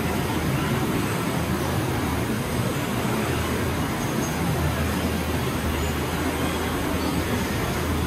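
Steady noise of a potato packing line's conveyors and robotic palletizer running, an even rumble over a low hum.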